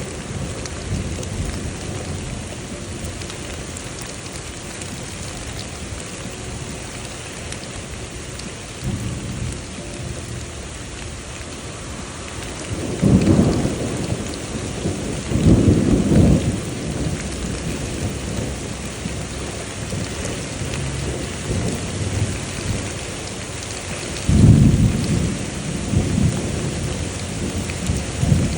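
Thunderstorm: steady rain falling, with low thunder rumbling through it. Louder rolls of thunder come about halfway through, twice close together, and again near the end.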